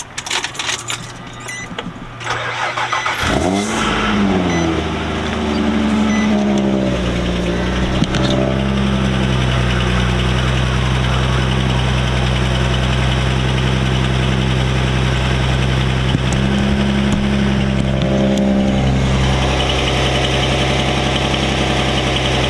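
Nissan Altima SE-R's 3.5-litre V6 cranked and started about three seconds in, its revs flaring up and then settling into a steady idle. By the owner's account the rear exhaust header is leaking.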